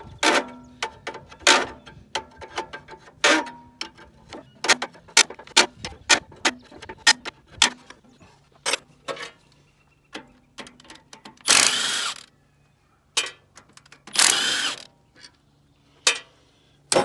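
Hand wrench working bolts on a tractor's hydraulic valve: a long run of sharp metal clicks and clinks. After that, two short runs of a cordless drill, one about two-thirds of the way in and one near the end.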